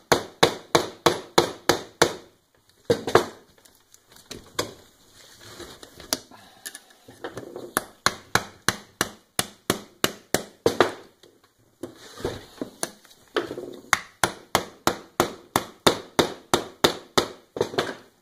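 Hammer striking the end of a screwdriver wedged between a riding mower tire and its rim, driving it in to break the stuck bead loose. Sharp taps about three or four a second, in runs with short pauses between them.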